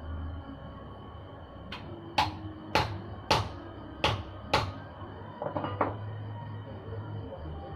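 A hand tool striking metal: a faint knock, then five loud, sharp metallic knocks about half a second apart, then a short rattle of smaller clicks, over a steady low hum.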